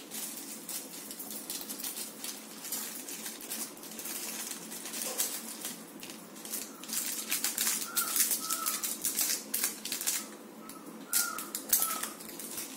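Small plastic packets crinkling and loose small metal screws clicking as they are handled and spilled out, a quick run of short clicks and rustles that grows busier about halfway through.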